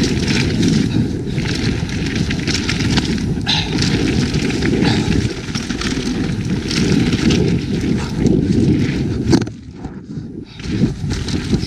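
Evil Calling mountain bike descending a dirt trail at speed: tyres rumbling and crackling over dirt and rock, the bike rattling, wind buffeting the microphone. The noise dips briefly about nine and a half seconds in, then picks up again.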